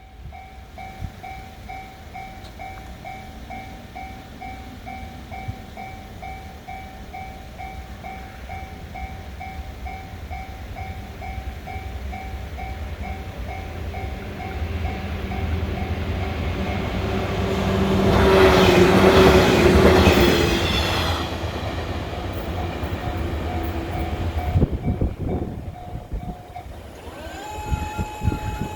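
Shinano Railway 115-series electric train passing a level crossing, building from about halfway through to its loudest for a few seconds, with wheel clatter, then fading. Under it the crossing alarm rings in steady evenly spaced pulses and stops shortly before the end.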